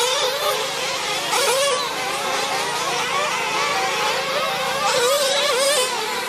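Several nitro-powered 1/8-scale RC truggy engines racing together, their overlapping high-pitched whine rising and falling constantly as the drivers throttle on and off.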